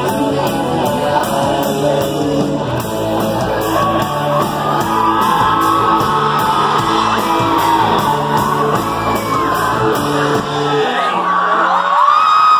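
A rock band playing live, with electric guitars, bass and drums keeping a steady cymbal beat, and the audience yelling over it. About eleven seconds in the drums and bass stop, one low note holds for a moment, and the crowd starts cheering and whooping as the song ends.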